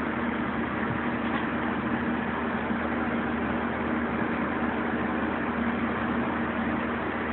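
Steady hum with an even hiss, unchanging throughout, like a motor or appliance running.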